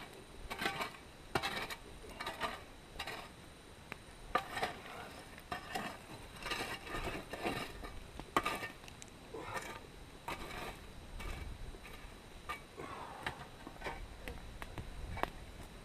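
Aluminium muffin trays and a foil baking tray being handled, giving irregular light clatters and crinkles.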